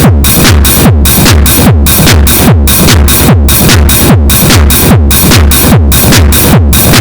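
Erica Synths Techno System modular synthesizer playing a heavily distorted techno beat: a loud kick drum about twice a second, each one dropping quickly in pitch, over a dense distorted wash.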